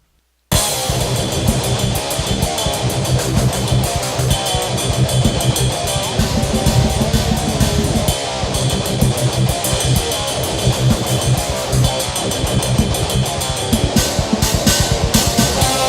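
Instrumental rock music with electric guitar, bass and a drum kit keeping a steady beat. It starts about half a second in, after a brief dead silence.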